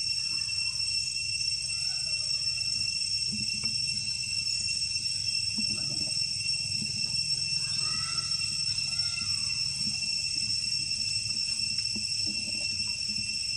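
Steady high-pitched drone of insects, cicadas or crickets, a continuous ringing at several pitches, over a low rumble, with a few faint chirping calls about halfway through.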